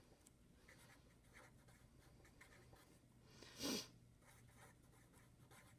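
Marker pen writing on paper, faint short scratching strokes as the words are written. About three and a half seconds in, a brief breathy noise stands out as the loudest sound.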